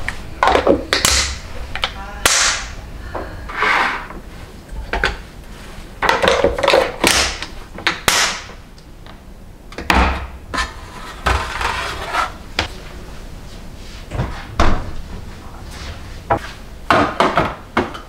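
Irregular clicks, knocks and clatters as lids are pressed onto glass food-storage containers and the containers are set into a stainless steel tray, some with a short rustling hiss.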